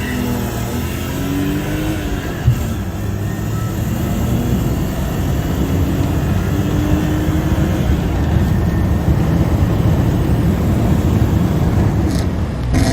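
BMW E32 7 Series petrol engine accelerating hard, its pitch climbing and then dropping back at the upshifts, about twice. A single sharp click about two and a half seconds in.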